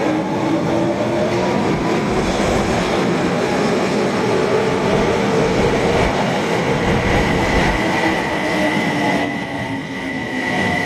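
Osaka Metro Tanimachi Line subway train running, its motor whine shifting slowly in pitch over the running noise. A steady high tone comes in about two-thirds of the way through and holds.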